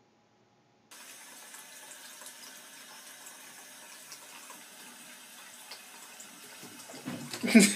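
Tap water running steadily into a bathtub, starting about a second in, with a brief louder sound near the end.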